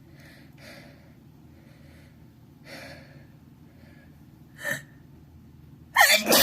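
A person with a cold working up to a sneeze: a few faint, shaky breaths, a sharp gasping inhale nearly five seconds in, then a loud sneeze bursting out near the end.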